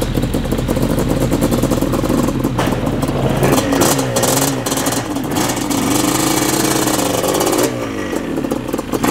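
Sport four-wheeler (ATV) engine running and revving up and down as the quad is ridden up onto a wooden trailer deck.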